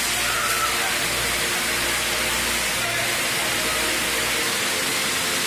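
Steady rush of a fast river running over rocky rapids, white water churning without a break.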